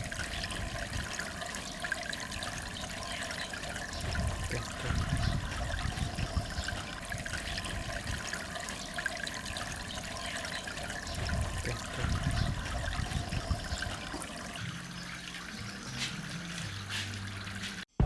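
Water trickling and splashing steadily from a small miniature waterfall into a goldfish pond.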